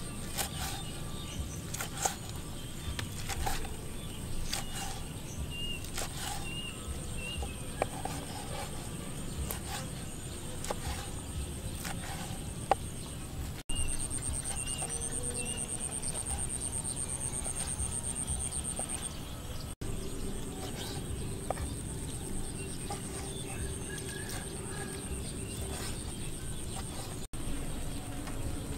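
Long kitchen knife cutting through cooked beef tripe on a wooden chopping board: irregular sharp knocks of the blade against the board. Behind it runs a steady high-pitched whine, with short chirps now and then.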